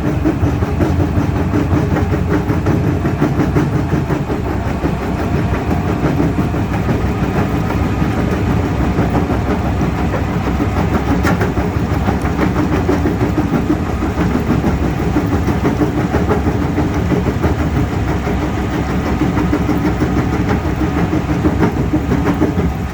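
Rockcrusher 11R crusher bucket on a Cat 336E excavator crushing rock: the excavator's diesel engine and hydraulics run steadily under load beneath a dense, continuous clatter of stone being broken and rattling through the bucket.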